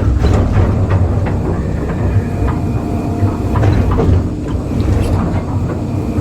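Excavator diesel engine running under load while the bucket knocks and scrapes against broken concrete slabs, giving irregular clanks and crunches over the steady low drone.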